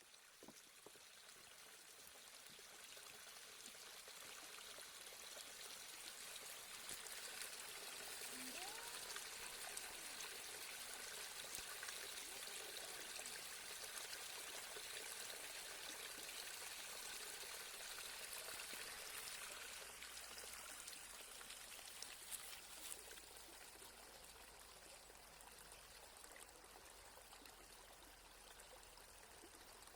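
Faint, steady rush of flowing water, like a stream, fading in over the first few seconds.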